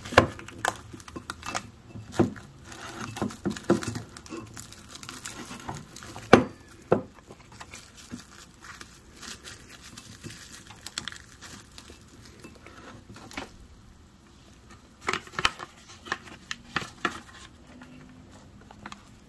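Plastic cling wrap crinkling and crackling as it is stretched tightly over a glass bowl and pressed around the rim, with occasional sharper clicks. The crackling comes in irregular spells, busiest at the start and again later.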